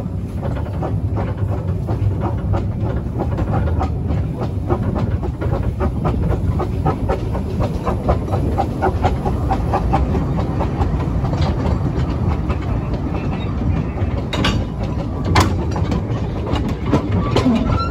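Kerr Stuart Wren 0-4-0 saddle-tank steam locomotive running steadily on narrow-gauge track, heard riding right behind it, with rapid clicking and clattering of the wheels over the rails. A couple of sharper knocks stand out near the end.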